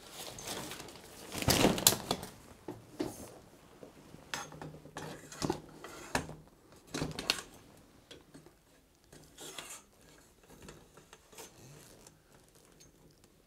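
Octbox fishing umbrella's metal pole and fittings clinking and knocking as the umbrella is handled, slotted into an upright post and opened. The loudest knocks come about a second and a half in, then scattered lighter clicks follow.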